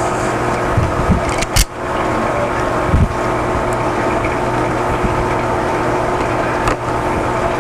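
Steady machine hum made of several held tones, with a few short clicks about one and a half, three and nearly seven seconds in as pliers work a hose clamp onto plastic tubing.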